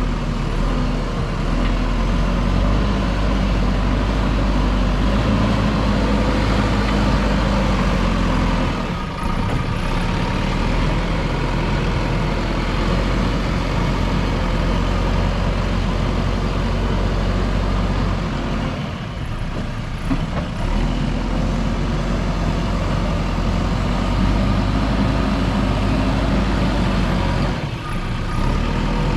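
Diesel engine of a JCB 3DX backhoe loader running steadily as the machine works, dipping briefly three times.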